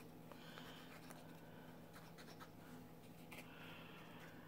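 Faint scratchy scraping of a liquid glue bottle's applicator tip drawn along cardstock as glue is laid down, in two short strokes, over a low steady hum.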